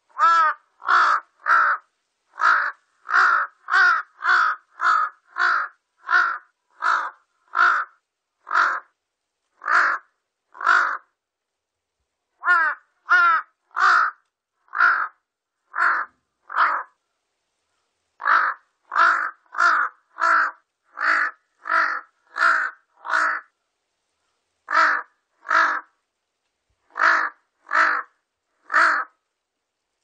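Large-billed crow calling: a long series of short caws, about two a second, in bouts broken by pauses of a second or two.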